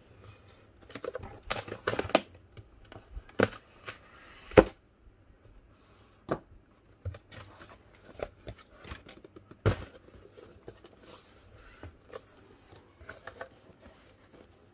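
Knife slicing through packing tape on a cardboard box, then the cardboard flaps being pulled open and handled, with scraping, rustling and sharp knocks. The loudest knocks come about four and a half and ten seconds in.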